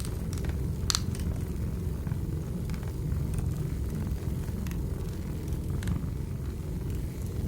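Wood fire crackling in a fireplace: a steady low rumble of burning logs with scattered sharp pops, the loudest about a second in.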